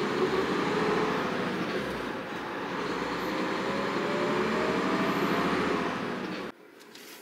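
Tractor-trailer's diesel engine and road noise heard inside the cab while driving, the engine note rising as the truck picks up speed. The sound cuts off suddenly about six and a half seconds in, leaving only a faint hiss.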